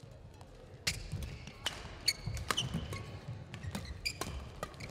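Badminton rally: sharp cracks of rackets striking the shuttlecock, the loudest about a second in, mixed with shoes squeaking and feet thudding on the court floor.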